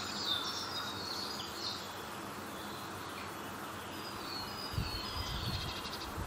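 Small birds chirping and twittering in short calls over a steady background hiss, with a few low thumps near the end.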